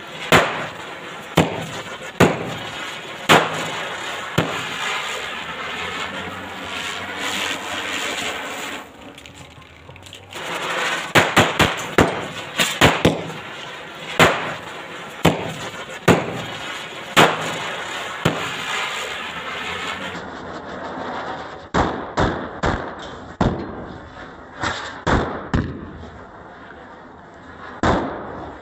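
Small red firecrackers banging and popping at irregular intervals over a steady fizzing hiss of burning sparks. There is a brief lull about a third of the way in, then a fast run of bangs.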